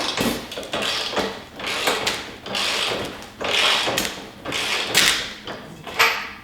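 Long-handled socket ratchet clicking in a run of repeated strokes, about one every three-quarters of a second, as the nylon lock nut on the cart's front steering bolt is tightened.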